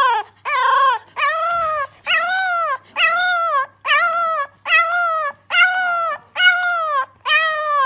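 French bulldog puppy howling in a steady string of short cries, each rising and then falling in pitch, a little more than one a second.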